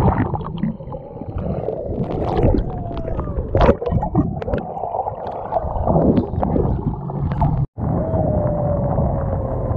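Underwater water noise: bubbly rushing and gurgling with sharp clicks and a few short gliding squeaks. About eight seconds in it cuts abruptly to a boat running through choppy sea, with spray and a steady low rush under a slowly falling tone.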